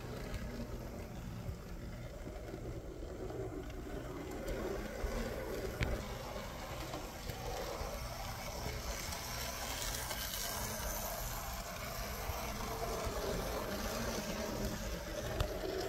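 Märklin Z scale model diesel locomotive running on its track: the steady whir of its small electric motor and wheels over a low, steady hum, with a single click about six seconds in.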